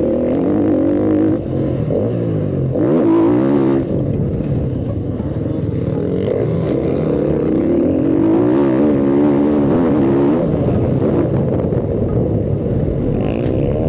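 Motocross bike engine heard from onboard, revving up and down through the gears. Its pitch climbs and drops repeatedly, with brief throttle-off dips about a second and a half in and again near four seconds.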